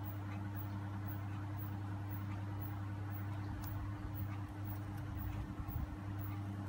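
Steady low background hum, with faint uneven bumps and rustles in the middle.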